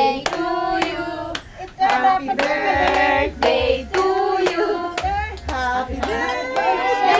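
A group of voices, children among them, singing together while hands clap along at a steady beat of about two claps a second.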